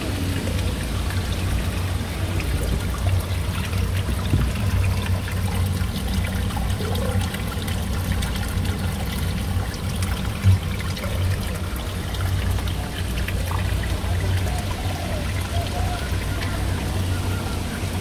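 Warm hot-spring water pouring and trickling out of a narrow rock cleft over the stones, a steady flow. One brief bump about ten and a half seconds in.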